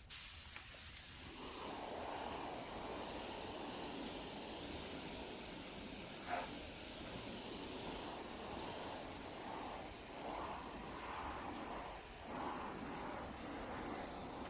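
Steady hissing noise that swells and eases a little, with one short tap about six seconds in.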